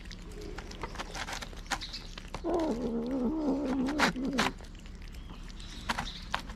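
Cats eating from clear plastic trays: wet chewing and scattered clicks and taps of the plastic trays. About two and a half seconds in, a low, wavering cat growl lasts about two seconds.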